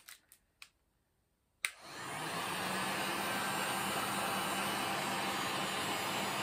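An electric heat gun clicks on about a second and a half in, and its fan spins up to a steady blowing hiss with a low hum as it blows hot air.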